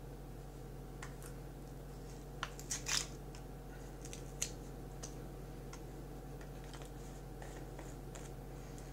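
Small plastic popcorn-seasoning jar handled and opened by hand: a scatter of faint clicks and crinkles, the loudest cluster about two and a half to three seconds in and another single click about a second later.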